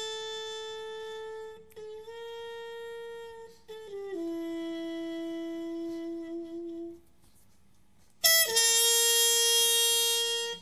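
Instrumental opening of a song: a single wind instrument plays long held notes one after another, dropping lower about four seconds in. It breaks off briefly about seven seconds in, then comes back with a louder, higher held note.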